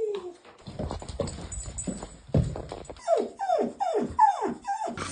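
A dog whining excitedly, a quick run of about five high whines that each slide down in pitch, starting a little past halfway.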